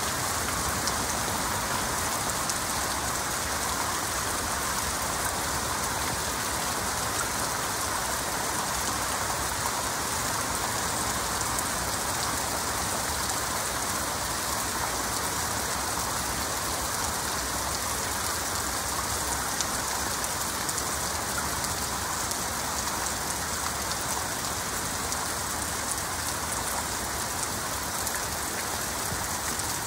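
Heavy rain falling steadily: an even, unbroken hiss of many drops.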